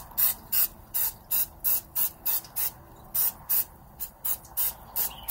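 Aerosol cooking spray can hissing in quick short spritzes, about three a second, with a couple of brief pauses between runs.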